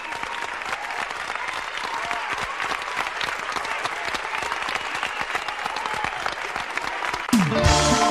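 Live audience applauding and cheering between songs. About seven seconds in, the band comes in with the next song, opening with a quick falling tone.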